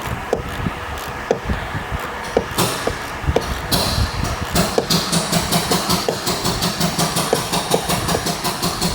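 Fast, even mechanical clicking at about four a second, starting about halfway through, over a steady low rumble and hum, with scattered single clicks before it.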